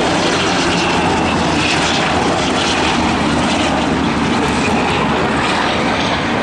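Military aircraft engines running loud and steady as an aircraft flies low past the crowd, a continuous rushing roar with a faint high whine.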